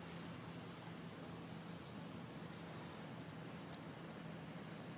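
Steady insect drone, one thin high continuous tone over an even hiss, with a faint low hum underneath and a few faint ticks; no animal calls stand out.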